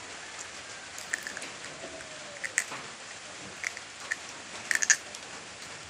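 Close-miked chewing of chicken gizzard: short wet mouth clicks and smacks, scattered and then bunched near the end, over a steady hiss.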